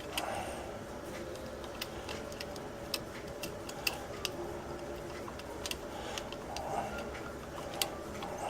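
Irregular light clicks and taps of a copper wire and screwdriver being handled against an electrical outlet while the wire is bent and worked onto a terminal screw.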